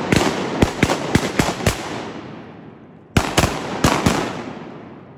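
A volley of shotgun fire from several hunters shooting at ducks: about seven shots in quick succession over the first two seconds, then after a pause of about a second, four more, with the reports echoing and dying away between them.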